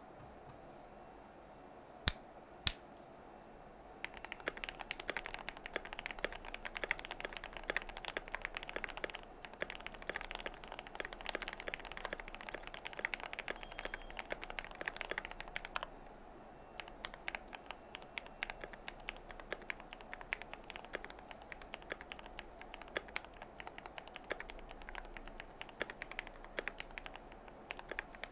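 Fast typing on a KBD67 R4 mechanical keyboard with lubed Gateron Milky Yellow linear switches, PBT keycaps, a PC plate and foam and tape mods. Two sharp, loud clicks come about two seconds in, then continuous rapid keystrokes start about four seconds in, easing briefly near the middle.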